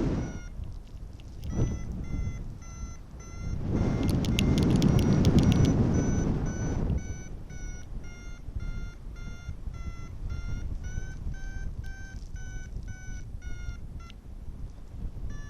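Paragliding variometer beeping a quick, regular series of short tones, the pitch lifting a little for a while in the middle: the climb signal that the glider is in rising air. Wind buffets the microphone loudly in the first half.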